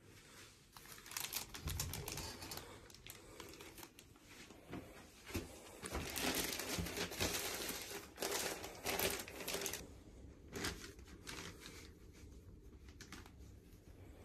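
Thin plastic bag crinkling and rustling in irregular bursts as it is handled and rummaged through, loudest around the middle and fading to a few light crackles near the end.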